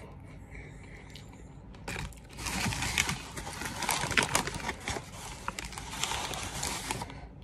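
A crinkled paper fast-food bag rustling and crackling as a hand digs into it for a Cinnabon. It starts about two seconds in and stops shortly before the end.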